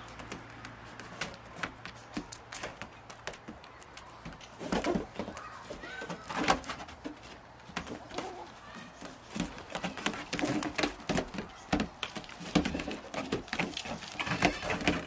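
Goat kids' hooves tapping and knocking on the roof of a small wooden playhouse as they hop and skip about, in irregular clusters of sharp knocks.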